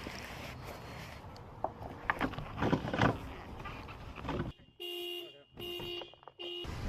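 Scattered clicks and knocks of handling, then two steady car-horn blasts, each lasting well over half a second, starting about 4.5 s and 5.7 s in.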